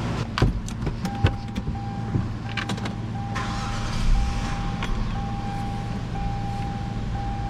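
Hyundai Santa Fe's warning chime, a single high beep repeating about every two-thirds of a second from about a second in, after a few clicks, over a steady low hum.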